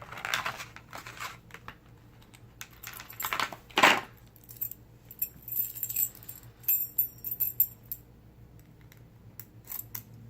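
A ring of keys jingling and a Lockwood 334S45 padlock being handled: scattered metallic clicks and rattles, a sharp loud click about four seconds in, and a run of ringing key jingles around six to seven seconds.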